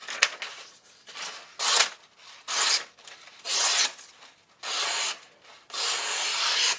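Freshly sharpened knife slicing through paper in about seven hissing strokes, the last two longer and smoother. The edge cuts cleanly along its full length without catching.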